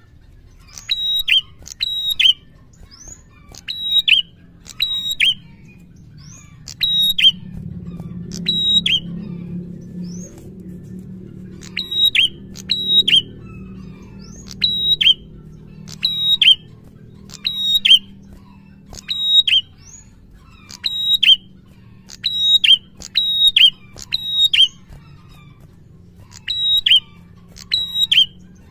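Red-headed prenjak singing a run of loud, sharp call notes, mostly in quick pairs every second or two, each note a short high downward slur. A low hum sits faintly under the calls in the middle.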